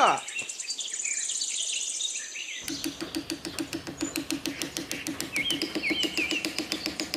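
Birds chirping. About two and a half seconds in, a rapid, even pulsing trill joins them and keeps going.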